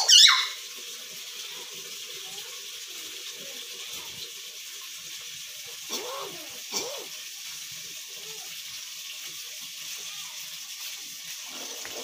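A hill myna gives a loud, high whistled call at the very start, then two short, quieter calls about six and seven seconds in, over a steady hiss.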